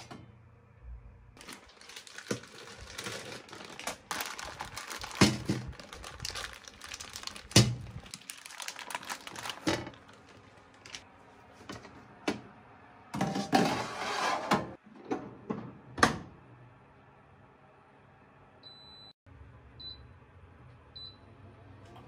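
Perforated stainless-steel steam-oven tray clattering and scraping as it slides out and back on its rack, with a plastic bag crinkling and irregular knocks as buns are set on it. The oven door shuts with a sharp clack, then the oven's control panel gives three short high beeps as it is set.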